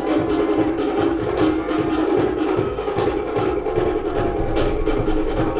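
Cook Islands drum ensemble playing a fast, dense ura pa'u drumming rhythm on wooden slit drums, with a sharp accented strike about every second and a half.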